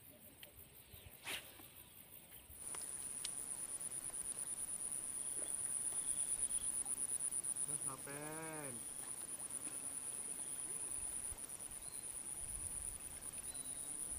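Insects buzzing in a steady, high-pitched drone that sets in a few seconds in, over open-air ambience. A short rising-and-falling call sounds once near the middle, and there is a single click about a second in.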